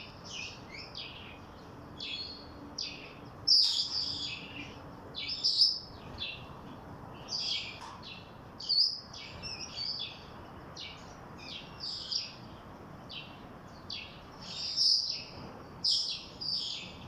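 Cockatiels chirping, a string of short, high-pitched calls coming one or two a second at uneven spacing, over a steady faint hiss.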